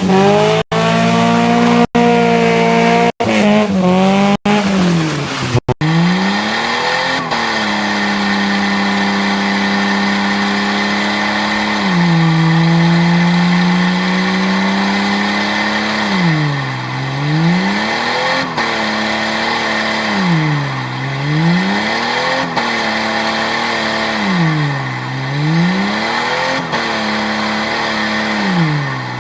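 A Jeep's engine held at high revs with tyres squealing in a drift or burnout, broken by several abrupt cuts in the first six seconds. Later the engine note repeatedly dips down and climbs back up, about every four seconds.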